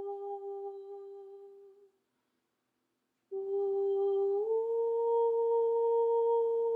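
A person humming long held notes: one note fading out, a short silence, then a new note that slides up a step about a second in and holds steady.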